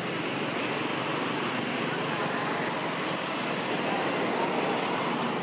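Steady outdoor background noise: an even rushing hiss with no single sound standing out.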